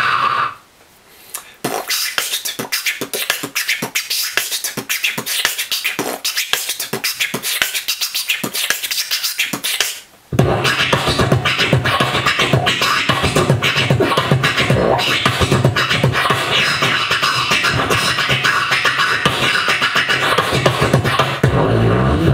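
Human beatboxer doing the vocal scratch, a mouth imitation of a DJ record scratch: rapid scratching strokes with no bass for several seconds, then after a short break a full beatbox groove with kick-drum sounds under the scratches.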